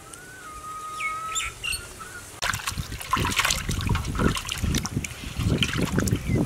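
A bird chirps briefly over quiet. Then, about two and a half seconds in, water starts splashing and trickling in a terracotta clay pot, and it keeps going.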